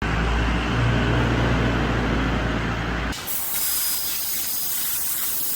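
Multi-function engraving and cutting machine at work: a low, steady hum for about three seconds, then an abrupt change to a steady hiss.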